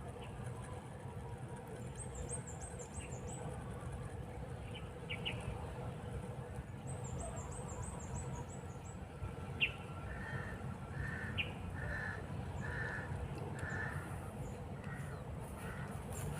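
Birds calling: a bird cawing in an evenly spaced series of about eight calls from around ten seconds in, and high, fast twittering from a small bird twice earlier on. A steady low outdoor rumble lies underneath.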